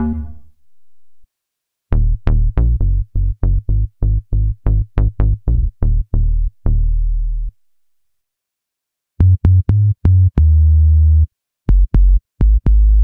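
Synthesizer bass presets of the reFX Nexus 4 ROMpler playing short, clipped notes. The last notes of one bass fade out in the first half second; after a pause, a quick run of short Rubber Bass notes goes for about five and a half seconds; after another pause, a deeper Sub Bass plays short notes with one held note.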